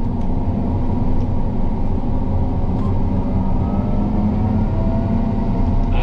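John Deere S680 combine running steadily, heard from inside the cab: an even engine-and-machinery hum with several steady tones. A faint whine rises slowly in pitch over the second half.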